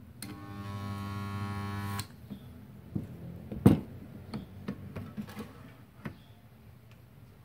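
Multipro portable mini spot welder's transformer buzzing for nearly two seconds as weld current passes through the clamped steel sheet, then cutting off abruptly. A loud metallic knock follows about a second and a half later, then a few light clicks as the lever and workpiece are handled.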